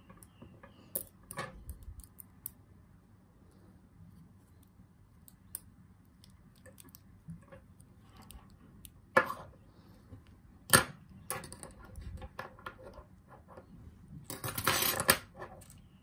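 Small metal lock parts clicking and clinking against each other and the parts tray as a brass padlock cylinder is reassembled: scattered light clicks, two sharp clicks about a second and a half apart past the middle, and a short metallic rattle near the end.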